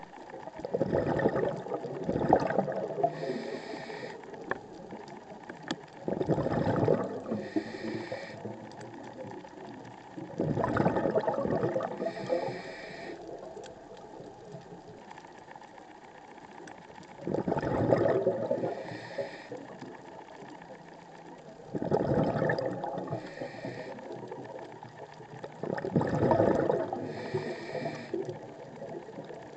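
Scuba diver breathing through a regulator, heard underwater: six loud bubbling exhalations several seconds apart, each followed by a fainter, shorter hiss of inhalation through the demand valve.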